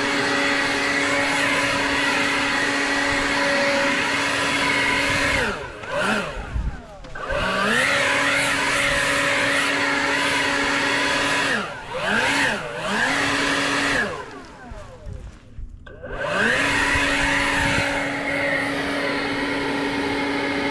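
Handheld leaf blower running at full speed with a steady whine, let off and spun up again several times: it winds down about five and a half seconds in, gives two short revs around twelve seconds, and is off for about two seconds before spinning back up near sixteen seconds.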